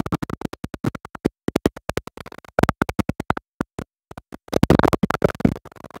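A man's amplified voice breaking up into rapid stuttering fragments, cutting in and out many times a second with brief dead gaps, as in a digital audio dropout.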